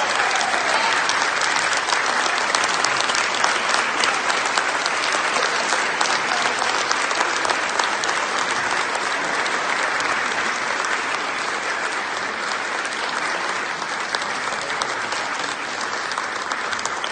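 Congregation applauding: a long round of many hands clapping that fades slowly toward the end.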